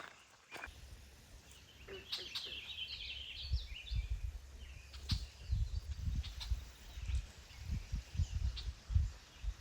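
A songbird sings a short warbling phrase about two seconds in, with a few thin chirps later. Under it, wind buffets the microphone in an uneven low rumble that comes in gusts and is the loudest sound from the middle on.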